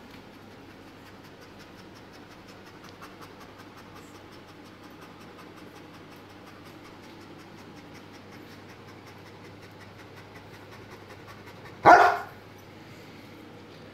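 Large dog panting steadily, with one short, loud bark from a dog just before the end.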